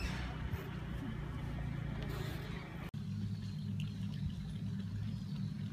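A steady low rumble of vehicle noise. It cuts out for an instant about three seconds in, then carries on.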